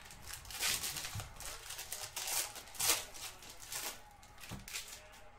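Trading cards and their packaging being handled: a string of short rustling, sliding sounds as cards are pulled and flipped.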